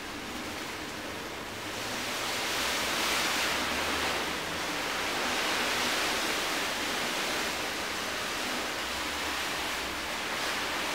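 A steady hiss of noise like distant surf, part of the ambient soundtrack, swelling about two seconds in and easing off a little near the end, with a faint low hum beneath.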